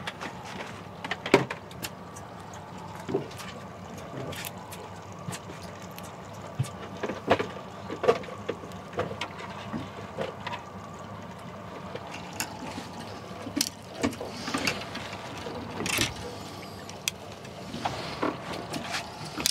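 A 300 hp Yamaha outboard runs steadily at low speed, with scattered clicks and knocks from handling on the boat's deck.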